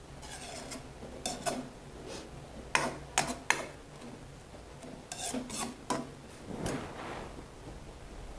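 Metal spatula scraping and knocking against a wok during stir-frying, in short irregular strokes.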